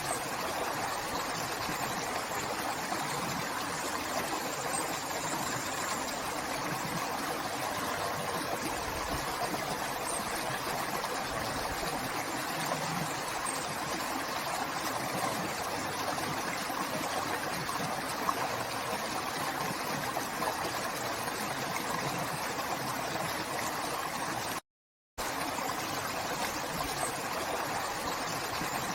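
A river flowing in a steady, even rush of water. It cuts out completely for about half a second near the end, then resumes unchanged.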